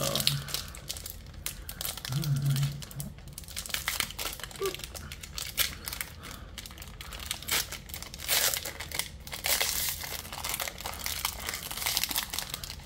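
Foil booster-pack wrapper crinkling and crackling in the hands as it is crumpled and torn open, a dense run of small crackles.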